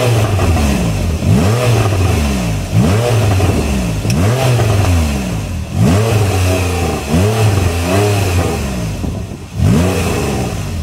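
Porsche 911 Carrera 4S (991.1) 3.8-litre naturally aspirated flat-six revved from idle in sport mode, about eight quick blips that each rise and fall in pitch. It is heard at the tailpipes through the standard exhaust, without the Porsche Sports Exhaust fitted.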